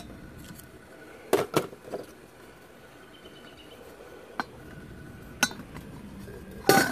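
Stainless steel pot lid clinking and knocking as it is prodded with a knife blade and then pried up by its handle with a wooden stick: about six separate sharp clinks, the loudest near the end.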